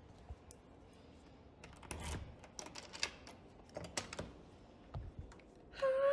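A key going into a door deadbolt and turning it: a series of small metallic clicks and rattles. Near the end a long, high-pitched vocal sound with a wavering pitch starts, louder than the clicks.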